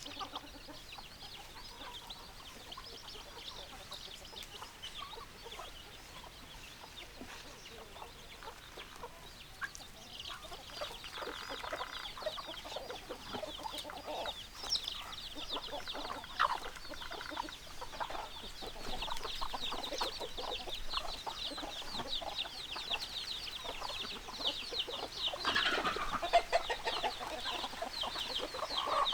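Chickens clucking, with a busy run of quick high-pitched chirps that starts about a third of the way in and grows louder toward the end.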